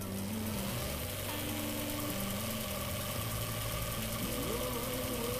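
Bafang BBSHD mid-drive e-bike motor running with no load at full assist, spinning the drivetrain with a steady electric whine and hum.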